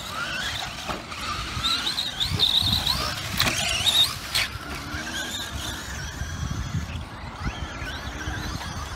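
Traxxas E-Revo's 4S brushless motor whining, its pitch rising and falling as the throttle comes on and off, over the rumble of its tyres on loose dirt. Two sharp knocks come about three and a half and four and a half seconds in.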